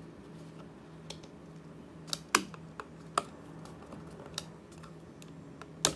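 Sharp plastic clicks and taps of a green SC/APC fibre-optic connector being worked loose and pulled from a wall fibre jack, about seven irregular clicks, loudest about two and a half seconds in and just before the end. A faint steady hum runs underneath.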